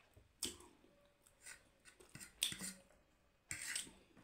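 A person slurping and chewing spicy instant noodles: a handful of short, wet eating sounds, the loudest about two and a half seconds in.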